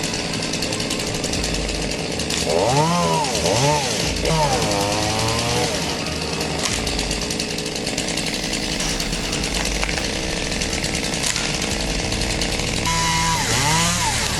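A chainsaw running, revved up and down several times about two and a half seconds in and again near the end, and running steadily in between.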